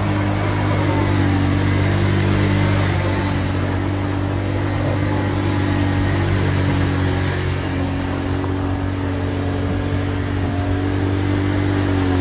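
Can-Am Outlander ATV engine running at steady, held revs as the quad circles in loose dirt.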